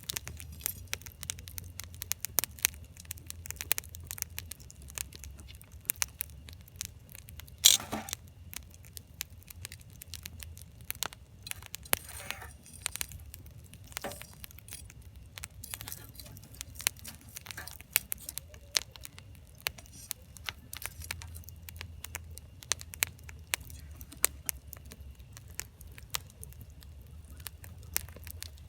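Wood campfire crackling: firewood popping in sharp, irregular snaps, with one louder pop about eight seconds in.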